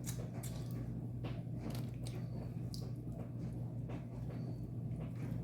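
Close-up eating sounds: chewing and lip-smacking, heard as irregular short wet mouth clicks over a steady low hum.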